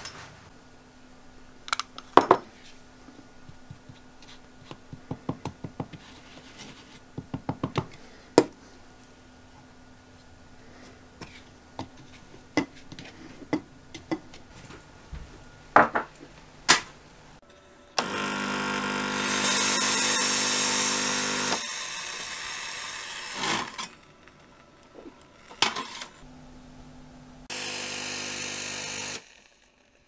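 Espresso machine's pump buzzing loudly for about three and a half seconds, then carrying on more quietly, with a second short buzz near the end. Before it, scattered clinks and knocks of cups and the machine being handled.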